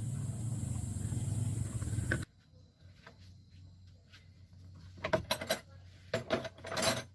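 Car engine idling with a steady hum that cuts off abruptly about two seconds in, followed by a few sharp clicks and clatters.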